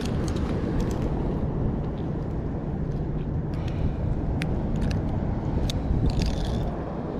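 Steady low outdoor rumble of wind and surf, with a few faint clicks as metal fish-grip pliers work a hook out of a small halibut on the rocks.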